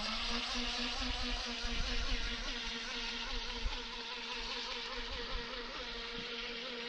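Distant radio-controlled boat's motor whining steadily, a thin buzzing hum as it runs across the lake, easing off slightly a few seconds in.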